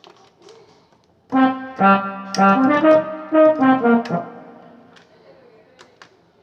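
Korg X3 synthesizer playing a brass-type patch from its GM bank: after about a second of quiet, a short phrase of several notes over a lower held note, dying away about four seconds in.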